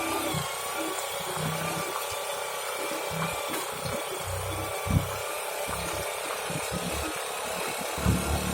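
A small engine running steadily with a faint whine, under a continuous hiss of wind and road noise, with a short sharp knock about five seconds in.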